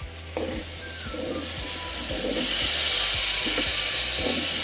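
Onion-and-spice masala with yogurt frying in a pan, sizzling and hissing, with the hiss swelling sharply about halfway through. Light spoon scrapes and knocks of stirring come through it.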